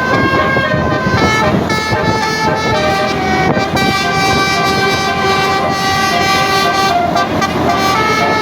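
Bus telolet horn with Basuri tones playing a melody: several horn notes sounding together, held and stepping to new pitches every second or so, over a steady low noise.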